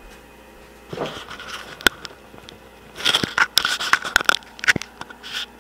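Rustling and scraping with sharp clicks: a burst about a second in, then a denser run of clicks and rustles through the second half.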